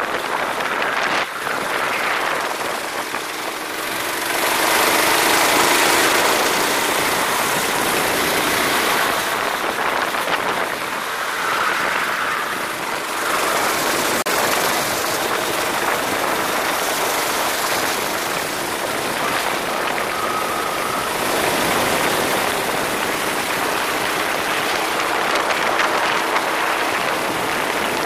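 Racing kart running on track, its engine note rising and falling a few times under a steady loud rushing noise.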